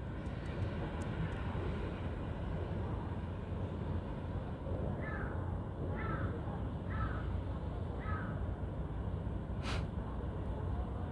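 A crow cawing four times, about once a second, over a steady low rumble of wind on the microphone, with a single sharp click near the end.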